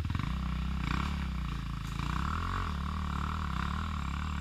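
Enduro motorcycle engine running under load, its revs rising and falling over and over as the throttle is worked.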